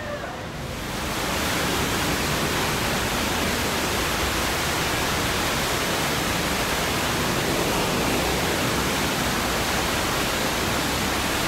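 Steady rushing of a waterfall pouring into an aquarium exhibit pool, rising about a second in and holding even throughout.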